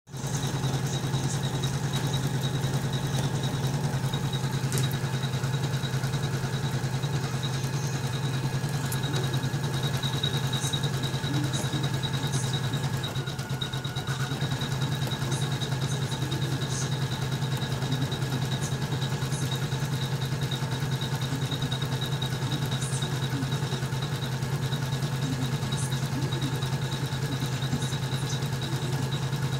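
Usha Janome MC450e computerized embroidery machine stitching a design, running steadily with a continuous rapid needle clatter, briefly a little quieter about halfway through.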